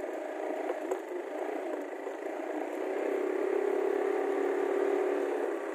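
Motorcycle tricycle's engine running while riding along, a steady drone that grows louder from about halfway through.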